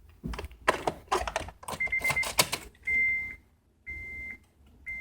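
A quick run of clicks and knocks, then the Acura RSX's dashboard warning chime beeping about once a second in a steady high tone from about two seconds in, as the ignition is switched on.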